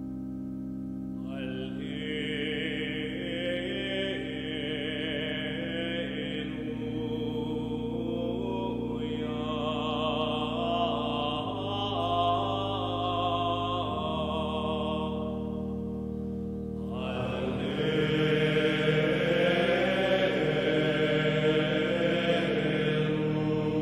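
Slow sung chant over sustained keyboard chords that change every few seconds, with a short break in the melody about two-thirds of the way through.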